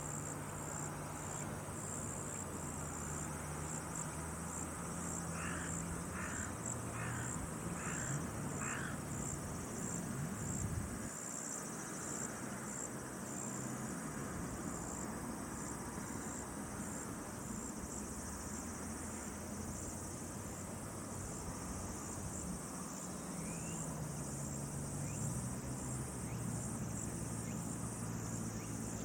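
Insects chirping in a steady high-pitched pulse, about two chirps a second. A run of five short calls comes about a quarter of the way in, over a low hum that shifts slightly in pitch.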